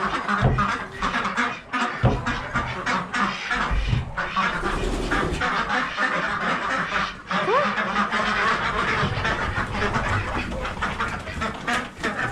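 A flock of domestic ducks quacking continuously, many calls overlapping, with occasional low thumps.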